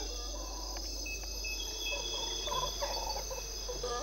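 Red howler monkey calling in short hoarse bursts, starting about halfway through and growing stronger near the end, over a steady insect chorus.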